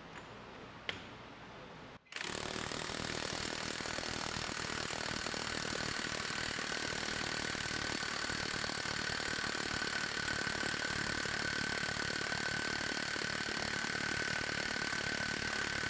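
Harbor Freight Hercules Ultra Torque brushless half-inch cordless impact wrench hammering continuously on a torque-testing rig as the torque builds. It starts about two seconds in, just after a single click, and runs steadily with a high whine over the rapid hammering.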